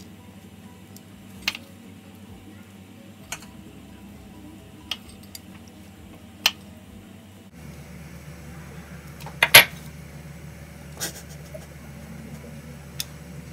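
Scattered sharp clicks and clinks, one every second or two with the loudest pair near the middle, as crushed walnuts are sprinkled by hand onto a metal serving tray. A steady low hum runs underneath and grows a little louder about halfway through.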